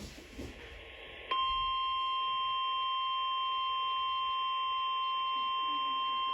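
Weather radio alert tone: a single steady electronic tone comes on sharply about a second in, after faint static, and holds without change. It is the attention signal that announces an urgent warning, here ahead of a tornado warning.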